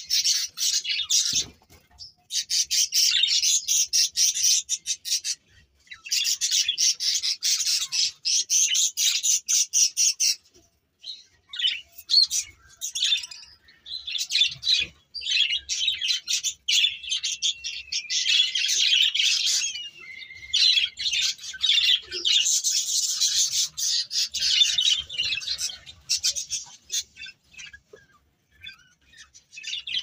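Budgerigars chattering: a rapid, high-pitched stream of chirps and warbles, with a few short breaks in the first ten seconds.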